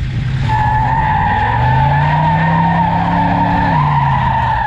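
Tires squealing loudly and steadily over a revving engine, as in a burnout. The engine note rises about one and a half seconds in, holds, and drops back near the end.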